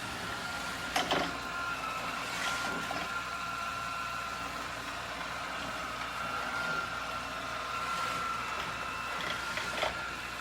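Robot vacuum running with a steady motor whine over a hum, with short knocks about a second in and again near the end.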